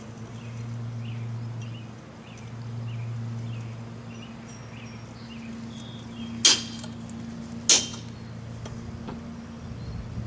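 A steady low hum, swelling twice early on, then two sharp hammer blows on an anvil about a second apart, each ringing briefly.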